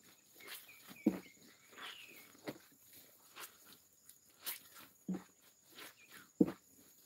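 Clothes being washed by hand in a plastic tub of water: wet cloth sloshed, squeezed and scrubbed, with four or five sharp wet slaps at irregular intervals.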